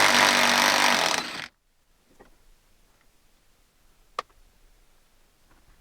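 Power tool spinning out a bolt, running steadily and stopping abruptly about a second and a half in. The last bolt holding the window regulator in the door is being loosened. Faint small clicks follow, with one sharp click about four seconds in.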